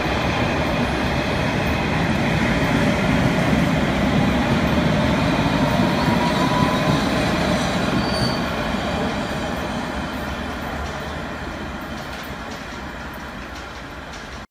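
London Underground S Stock train running out along the platform: a steady rumble of wheels on rails with a faint rising whine, loudest a few seconds in, then fading steadily as the train draws away.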